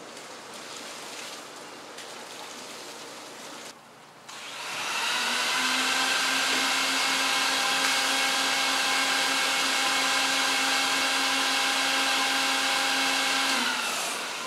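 Water gushing from a hose outlet over a flooded wool rug. About four to five seconds in, the rug-washing machine's motor comes in and runs with a steady, constant-pitch whine over the rush of water, dropping away just before the end.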